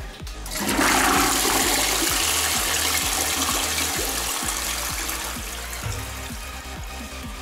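Toilet flushing into a bowl packed with sweet straws: a loud rush of water starts about half a second in and slowly dies away as the bowl fills.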